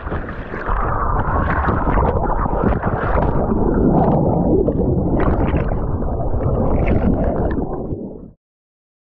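Muffled, rumbling churn and bubbling of river water heard with the camera under the surface. It cuts off abruptly about eight seconds in.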